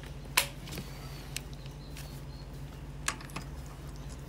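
A few light, sharp clicks and taps of hand tool handling, the sharpest about half a second in, over a steady low hum, while an impact driver and its socket are set onto the edger's pulley nut.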